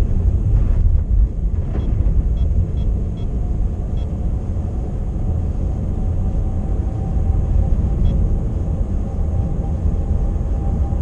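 Car being driven on a winter road, heard from inside the cabin: a steady low rumble of engine and tyres, with a few faint light ticks about two to four seconds in.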